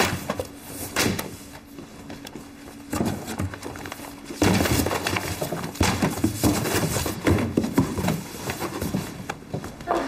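Books and papers being packed into a cardboard box: irregular rustling and knocks against the cardboard, busier and louder from about halfway through.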